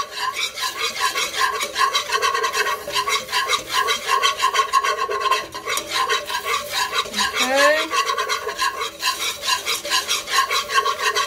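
A wire whisk beating a thick butter-and-flour roux in a nonstick pot, in fast, steady strokes that scrape across the bottom of the pot.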